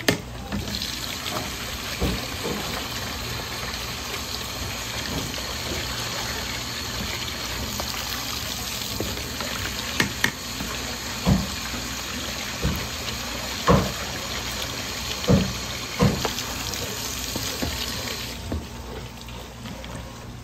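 Tap water running steadily into a plastic basin while fish fillets are rinsed by hand, with several sharp knocks in the second half. The water shuts off near the end.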